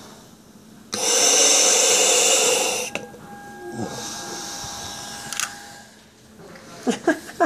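A deep breath drawn through a gas-and-air (Entonox) mouthpiece, the demand valve hissing loudly for about two seconds, then a longer, quieter breath with a steady whistling tone in it. A few short sharp sounds come near the end.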